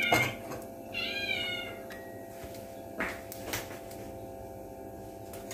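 A cat meowing twice in short, wavering calls: one right at the start and one about a second in. A few faint clicks follow.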